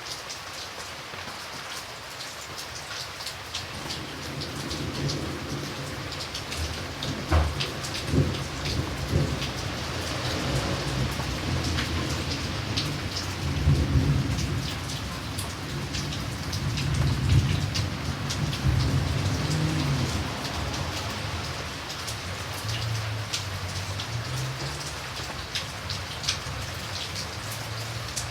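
Steady rain falling, with many close drops striking a surface. A long roll of thunder rumbles in a few seconds in, swells in the middle and dies away near the end.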